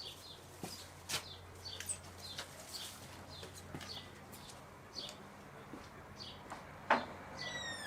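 Small birds chirping faintly and irregularly, with a quick falling trill near the end. A few sharp clicks are heard, one about a second in and one near the end, over a faint steady hum.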